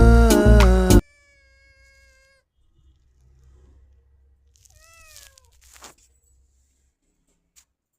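Background music stops abruptly about a second in. Then a domestic cat gives one short meow, falling in pitch, about five seconds in.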